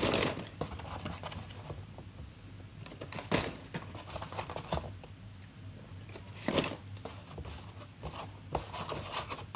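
Takeout packaging crinkling and rustling as it is handled, in a few short bursts: one at the start, one about three and a half seconds in and one about six and a half seconds in, with lighter rustles between.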